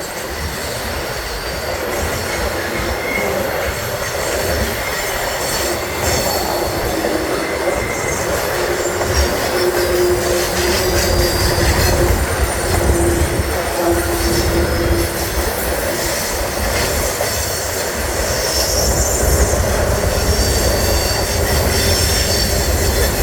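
Train cars rolling past close by, a loud continuous rumble and rattle of steel wheels on rail with squealing wheels, really loud and hard on the ears.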